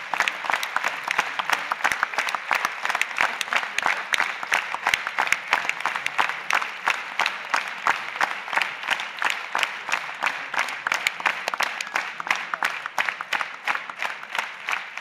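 Audience applauding: a large crowd clapping steadily throughout.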